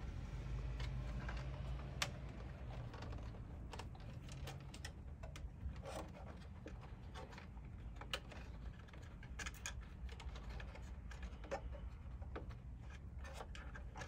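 Light, irregular clicks and taps of hands handling and fitting the plastic sprinkler controller and its enclosure, over a steady low background hum.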